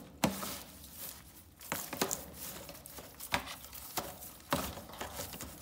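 Wet hay and rabbit droppings being pulled by hand out of a cage drainage gutter: rustling, with a few scattered sharp knocks and clicks.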